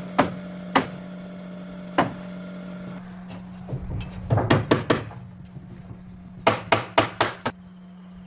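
Hammer blows on wood: three spaced strikes, then two quick runs of about five blows each.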